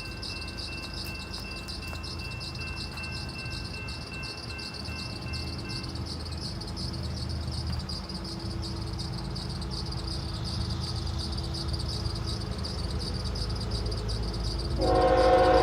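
Low rumble of an approaching Norfolk Southern freight train's locomotives slowly growing louder under steady insect buzzing. Near the end the locomotive horn starts, sounding loud as a chord of several tones.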